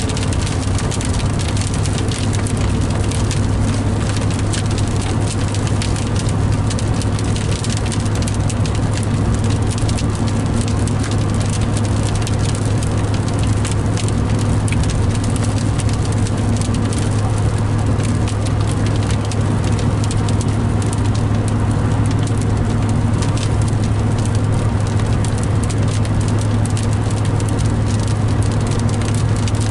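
Rain pattering on a moving car's windshield and roof, heard inside the cabin as many small ticks over a steady drone of engine and tyres on wet road.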